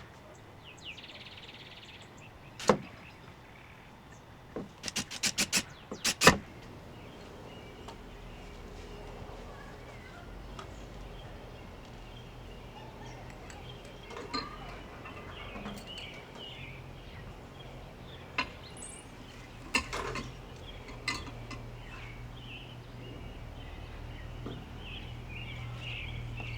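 Sharp clicks and clinks from handling a glass hummingbird feeder on its metal hanger hook, with a quick run of them about five to six seconds in and a few more later. Faint bird chirps in the background.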